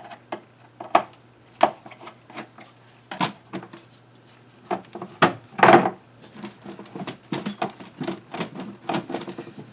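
Hand tools and metal parts clicking and knocking irregularly while the starter is being unbolted from a 1995 Honda Civic, with one louder scraping clunk about halfway through.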